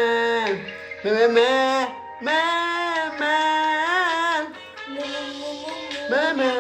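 A young child's voice imitating animal calls in long, drawn-out, sung-like cries, several held notes in a row that slide up and down in pitch.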